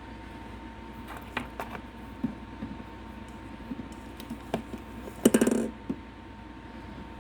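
Handling noise: scattered light clicks and knocks, with a short burst of rapid rattling clicks about five seconds in, over a faint steady tone.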